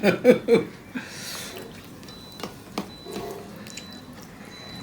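Wet eating sounds from rice and fish curry being eaten: soft squishing with a few small sharp clicks, after a brief bit of talk at the start.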